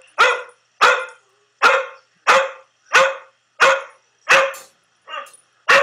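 A dog barking over and over at an even pace, about one and a half barks a second, from a YouTube recording of a barking dog played back through a device's speaker; one quieter bark falls near the end.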